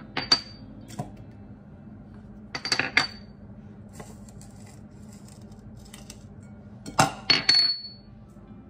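Small ceramic ramekins clinking and tapping against a ceramic mixing bowl as spices are tipped out of them: sharp clinks, some with a brief high ring, in three clusters, near the start, around three seconds in and around seven seconds in.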